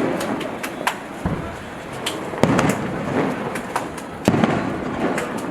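Aerial fireworks bursting: a run of sharp cracks and several heavier booms, each followed by a rumbling echo.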